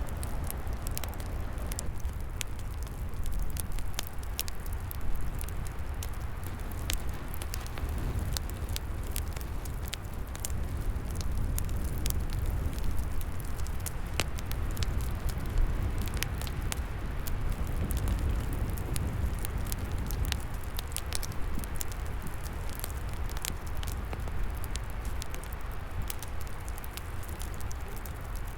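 Wood fire crackling and popping, with many small irregular snaps and a few louder pops, over a steady low rumble of wind.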